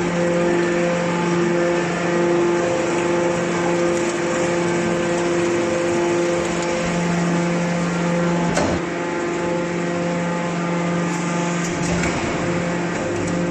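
Hydraulic can baler's pump unit running with a steady hum, with two short knocks, one past the middle and one near the end.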